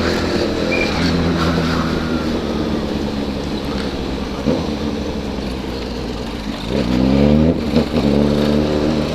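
Honda CB1000 motorcycle's inline-four engine through a 4-into-1 exhaust, under way: it holds a steady, slowly falling note for several seconds, then revs up sharply about seven seconds in and again a second later as it accelerates.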